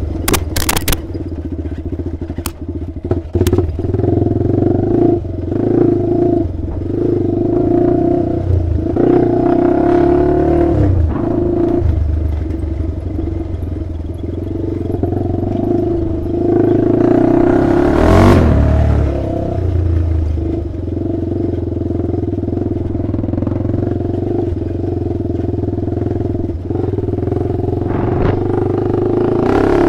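Honda 400EX sport ATV's single-cylinder four-stroke engine running under changing throttle while riding a dirt trail, heard from the rider's helmet. A few sharp clicks come near the start, and a brief rush of noise a little past halfway.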